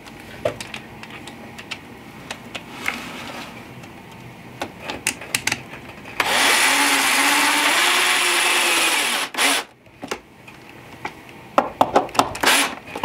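Power drill driving a roofing screw into wood, running steadily for about three seconds about halfway through. Light clicks and rattles of wires and plastic being handled come before and after, with a brief burst of the drill near the end.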